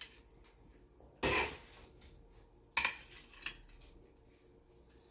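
A few short clinks and knocks of kitchenware as roasted potatoes are set onto a dinner plate from a wire rack on a sheet pan. The loudest comes about a second in, with two smaller ones near three seconds.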